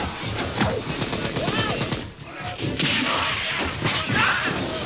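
Cartoon fight sound effects: several hard hits and crashes, with short grunts and shouts.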